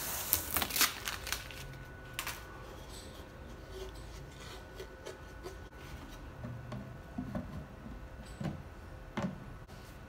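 A plastic sheet rustling and crinkling as it is pulled off the bench, then quieter handling: a panel slid into a box, with a few light knocks and scrapes.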